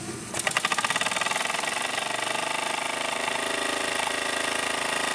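Bowman Pioneer model marine steam engine starting, about a third of a second in, after its flywheel is flicked by hand. It then runs fast: a rapid, even patter of exhaust beats over a steady hiss.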